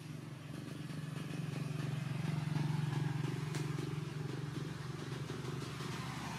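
Engine of a motor vehicle running nearby, a steady low hum that grows louder to about halfway through and then eases off slightly.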